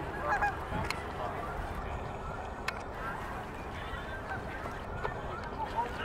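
A flock of geese honking, many short calls overlapping, with a louder cluster of honks just after the start.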